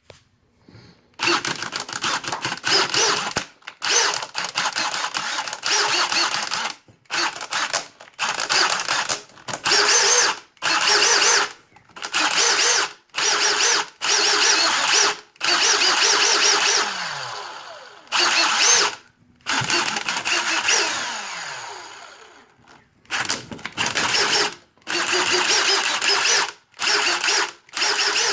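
Milwaukee M18 FUEL 2853-20 cordless impact driver started and stopped over and over in short bursts of about a second as the trigger is pulsed rapidly. Twice the motor winds down slowly with falling pitch instead of stopping at once: the electric brake is not working.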